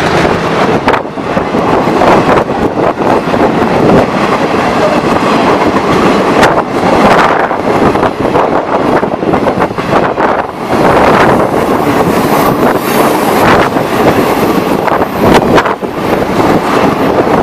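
Work train rolling past close by: a loud, steady rumble and clatter of wheels on the rails, with a few sharp clanks.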